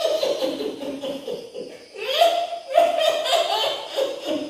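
A woman's high-pitched cackling laugh, the witch-like cackle of an old ghost character, in three long peals with brief breaks between.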